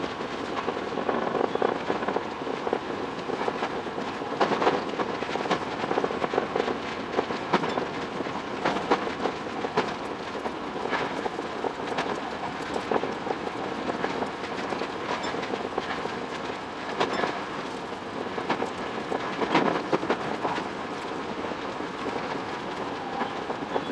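Tokyo Metro 10000 series electric train running along the track: a steady rumble with a dense, irregular clatter of wheels over rail joints.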